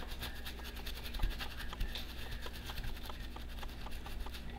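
Paintbrush scrubbing flux residue off an Xbox 360 motherboard with acetone and mineral spirits: a rapid run of dry, scratchy brush strokes that stops near the end.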